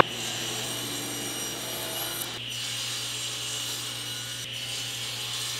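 Table saw running with a steady motor hum while its blade rips through a board of four-quarter cherry to cut it to width.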